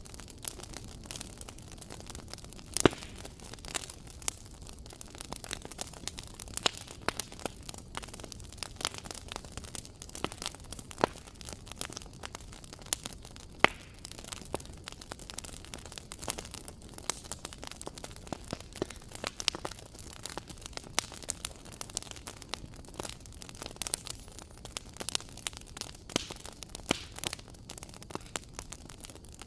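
Wood fire crackling in a fireplace: a steady soft hiss with frequent sharp pops and snaps at irregular intervals.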